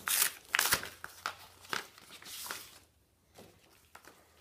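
Paper envelope rustling and crinkling as it is handled and opened, in a run of short crinkles over the first two and a half seconds.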